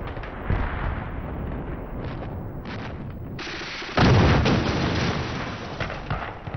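Battle sound effects of gunfire and explosions: a steady rumble with a few sharp cracks, then one loud blast about four seconds in that slowly dies away.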